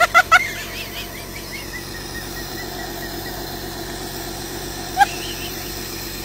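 Short, high chirping animal calls. Several come in quick succession near the start and trail off into a fast run of small falling chirps, and one more comes about five seconds in, over a steady low background noise.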